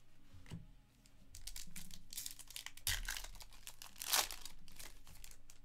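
Hands handling a stack of trading cards with crinkling of a foil card-pack wrapper: a run of rustles and crinkles, loudest about four seconds in.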